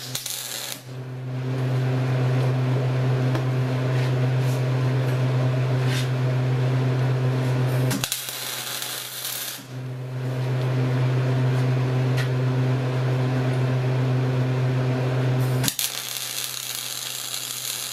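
MIG welder arc welding rebar onto a steel round bar: a steady crackling buzz with a strong hum, in two runs of about seven and six seconds, with a brief pause about eight seconds in, stopping near the end.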